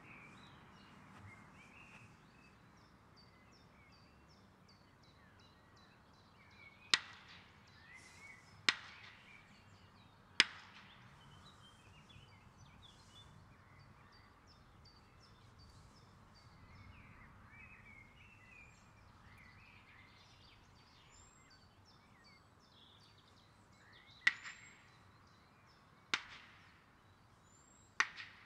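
Two wooden boards slapped together far off across an open field: six sharp claps, in two groups of three, each trailed by a short echo. Birds chirp faintly between the claps.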